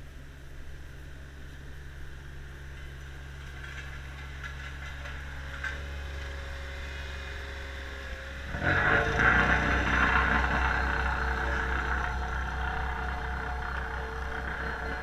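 Truck-mounted asphalt spreader's engine running with a steady low hum as it lays asphalt; about eight and a half seconds in a much louder mechanical noise with a steady tone sets in suddenly and slowly eases off.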